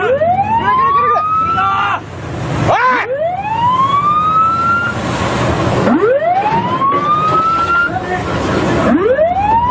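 A ship's siren sounding a repeated warning: four rising wails, each climbing for about two seconds and then cutting off, about three seconds apart. Beneath it is a steady rush of wind and water from the bow wave.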